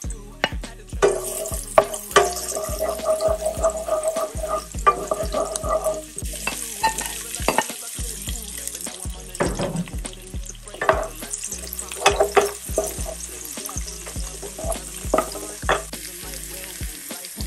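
Chopped garlic and red onion sizzling as they sauté in hot annatto oil in a wok, the hiss starting about a second in. A wooden spoon scrapes and knocks against the pan as they are stirred.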